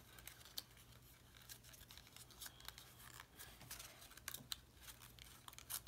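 Faint crackle of origami paper being folded and creased between the fingers: scattered small crisp ticks and rustles.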